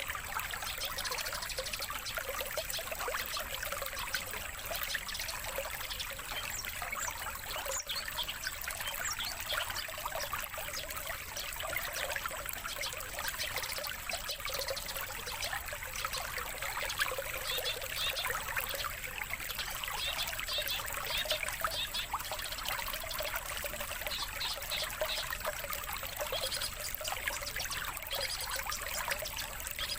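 Steady trickling, splashing water, running on without a break.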